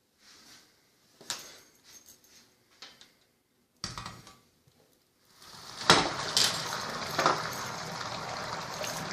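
Kitchen clatter of pots, dishes and cutlery being handled in short knocks and clinks. About five seconds in, water starts running steadily, as from a tap, with a few louder clanks over it.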